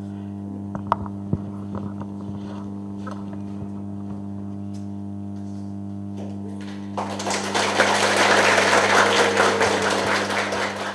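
Steady mains hum from the hall's sound system, with a few faint clicks. About seven seconds in, an audience starts applauding over the hum.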